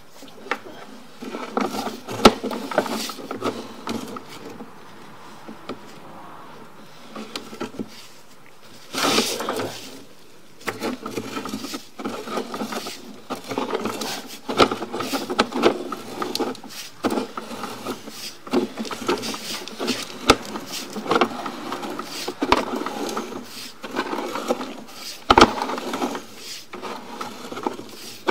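Sewer inspection camera's push cable being fed down a drain pipe: irregular clicks, knocks and scraping as the cable moves and the camera head travels along the line.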